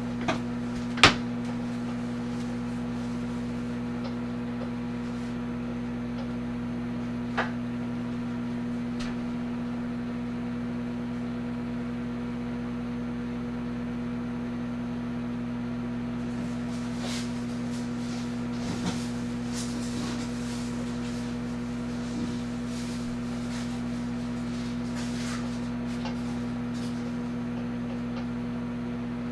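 Amazon Basics 0.7 cubic foot microwave oven running with a steady electrical hum while it cooks a sweet potato. A few sharp clicks come in the first second or so and once more about seven seconds in.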